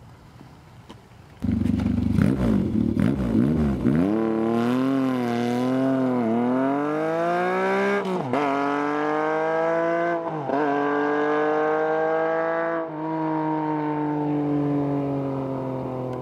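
1979 Yamaha XS750 three-cylinder engine, through a three-into-one header and megaphone muffler, comes in suddenly about a second and a half in, revs up and down, then pulls away accelerating through the gears: the pitch climbs and drops sharply at three upshifts. After the last shift it settles into a steady, slowly falling note that gets quieter near the end.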